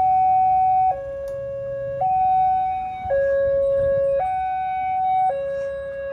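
Railway level-crossing warning alarm sounding a two-tone electronic chime, alternating a higher and a lower tone about once a second, the signal that the crossing is closing for an approaching train.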